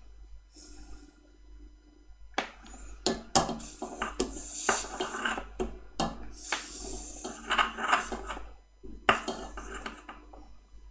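Small metal tools and parts clattering and scraping as they are handled on a workbench: an irregular run of clicks and rattles starting about two seconds in, with a short pause shortly before the end.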